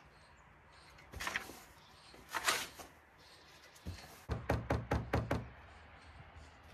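Knocking on the wooden raised-bed frame: a quick run of about six sharp knocks a little over four seconds in, after a couple of brief scraping rustles.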